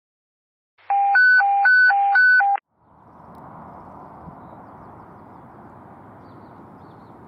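An electronic two-tone hi-lo alert, alternating quickly between a low and a high beep for three cycles, which cuts off abruptly. Then a steady, much quieter background noise.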